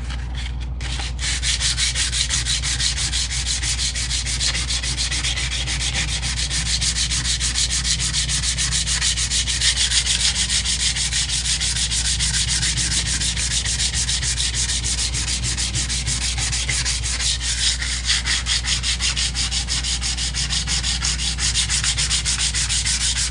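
Hand sanding of a cast-aluminum housing with 220-grit sandpaper: a steady, fast back-and-forth scratching in quick, even strokes that starts about a second in.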